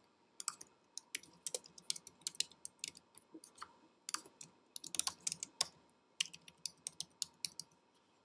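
Typing on a computer keyboard: quick runs of keystrokes in three bursts with short pauses between them.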